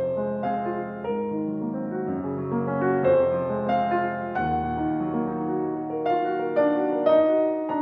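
Background piano music: a slow, gentle melody of sustained notes.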